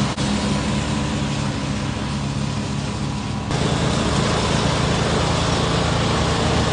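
Engine of a side-by-side utility vehicle rigged with mowing decks, running steadily with a low hum. The sound shifts slightly about halfway through.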